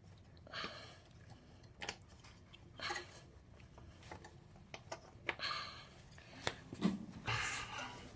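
Spark plug boot being worked onto the spark plug of a small engine by hand: a series of short scuffs and sharp clicks, several spread over a few seconds.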